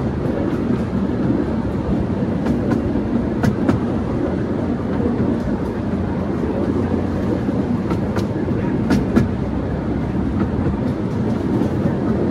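12-inch gauge miniature railway train rolling along the track at a steady pace, heard from a carriage: an even rumble of wheels on rail with scattered sharp clicks.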